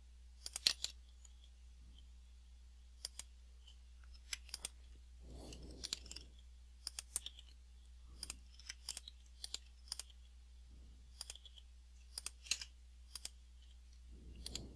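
Faint computer mouse and keyboard clicks, scattered irregularly, singly and in quick clusters, over a steady low hum.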